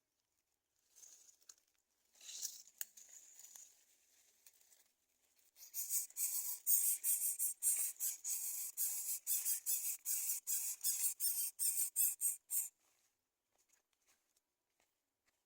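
Greater coucal nestlings calling: a few scattered high squeaks, then a rapid run of raspy, high-pitched calls, several a second, lasting about seven seconds before stopping.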